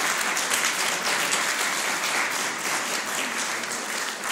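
A roomful of people applauding: dense, steady clapping that keeps up at full strength.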